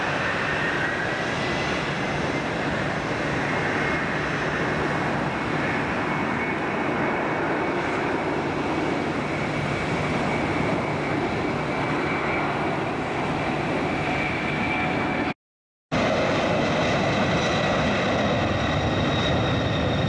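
Jet airliner engines running at low power while the aircraft taxis: a steady roar with a faint whine that rises slightly over the first couple of seconds. About fifteen seconds in, the sound drops out for half a second, then similar engine noise carries on.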